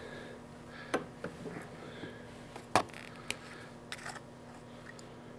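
A few faint, sharp clicks and light taps from small fly-tying hand tools being handled at the vise, such as scissors and a bodkin. The loudest click comes a little under three seconds in.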